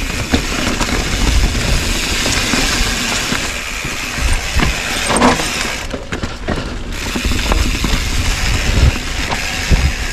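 Mountain bike descending a dirt singletrack: knobby tyres rolling over packed dirt and leaves, with the bike rattling and knocking over bumps under a steady low rumble. The highs briefly thin out about six seconds in.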